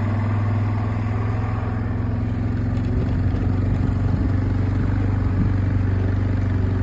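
Off-road vehicle's engine running steadily while being driven: a constant low hum with engine noise over it.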